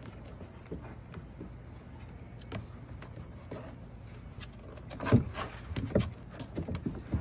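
Puppy claws and paws scrabbling and knocking on a hollow plastic toy slide: scattered light taps and scrapes, with a cluster of louder knocks about five to six seconds in.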